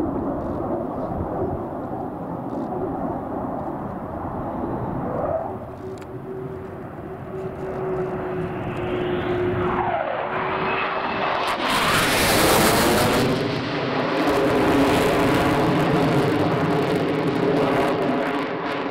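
RAF Eurofighter Typhoon's twin jet engines on a low-level pass: a distant rumble with a steady whine building as it approaches. It becomes a loud roar as it goes over about twelve seconds in, and stays loud as it moves away.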